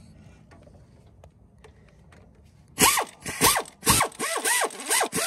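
Power ratchet tightening a nut on the starter's cable terminal, run in about five short trigger bursts, each a quick whirring spin-up and spin-down. A few faint ticks come before the first burst.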